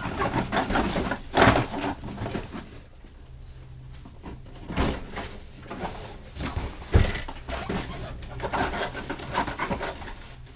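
Cardboard box packing and plastic wrapping rustling, scraping and knocking as they are handled and lifted out of the box, with one sharp knock about seven seconds in.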